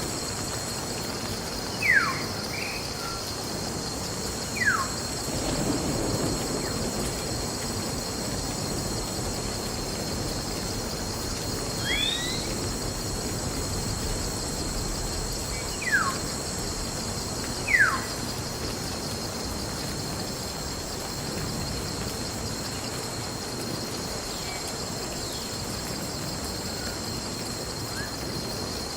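Forest nature ambience: a steady high-pitched chorus of crickets or other insects, with a bird calling short whistled notes that slide downward, one every few seconds, over a soft hiss of background noise.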